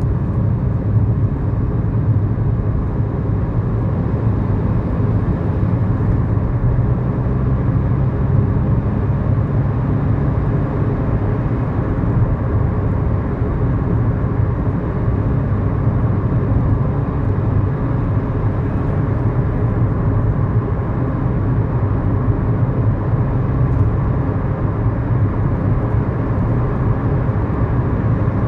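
Inside the cabin of a 2011 Kia Morning with a 999 cc four-cylinder engine, running at a steady speed: an even, low engine drone mixed with road noise, holding steady with no gear changes.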